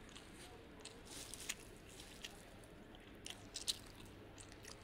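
Faint, close-miked chewing of strawberry mille-feuille: soft wet mouth clicks, with a couple of sharper clicks, the loudest about three and a half seconds in.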